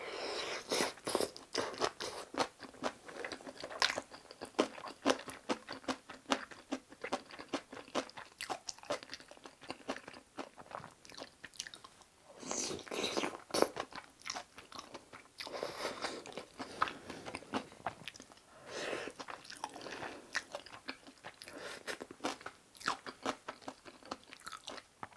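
A person biting and chewing mouthfuls of kimchi cream fried rice with melted mozzarella, with many sharp wet clicks of the mouth and teeth in several bouts of chewing.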